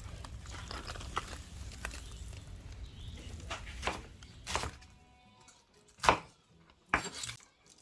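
Kitchen clatter: a handful of sharp knocks of dishes or utensils, the loudest about six seconds in, over a low steady rumble that fades out about five seconds in, with soft background music.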